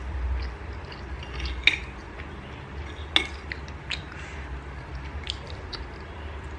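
Metal fork and spoon clinking and scraping against a ceramic plate while twirling instant noodles, with a few sharp clinks, the loudest about one and a half seconds in and again about three seconds in, over a low steady hum.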